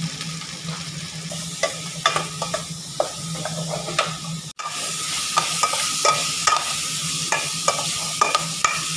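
Garlic and diced pork sizzling in a stainless steel pot while a metal ladle stirs them, clinking and scraping against the pot. A low hum under the first half stops about halfway, where the sizzling becomes louder and the ladle strikes come more often.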